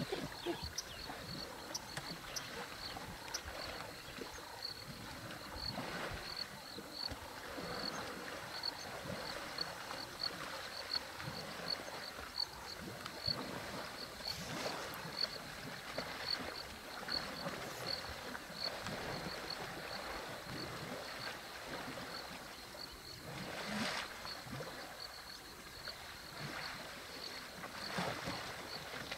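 Water sloshing and splashing as African elephant bulls wallow and push against each other in a waterhole, with uneven surges of splashing. A high chirp repeats about two to three times a second behind it.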